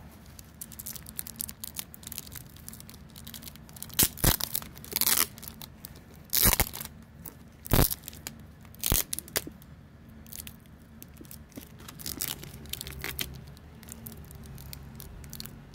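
Clear plastic packaging being torn open and crinkled by hand: about five sharp tearing, crackling bursts roughly a second apart in the middle, then quieter rustling near the end.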